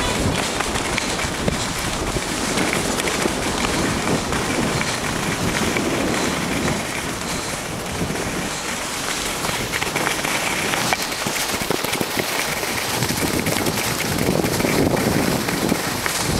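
Skis sliding over firm, tracked-up snow with a continuous scraping, crackling noise, with uneven rushing wind on the microphone from moving at speed.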